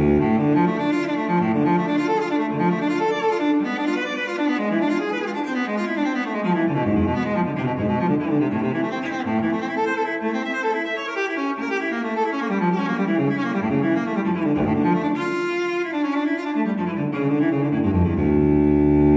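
Instrumental background music of slow, sustained string notes, growing fuller in the low register near the end.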